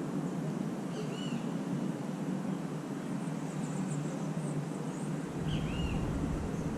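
A bird gives short arched call notes twice, about a second in and again near the end, with faint high twittering between, over a steady low rumble of distant city traffic.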